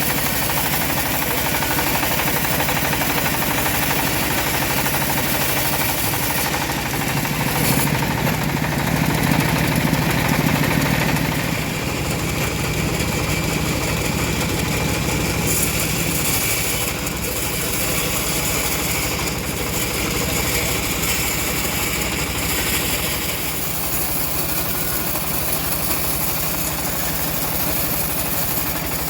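Homemade bandsaw mill running steadily, its motor humming throughout. It grows louder for a few seconds about a third of the way in, then settles back.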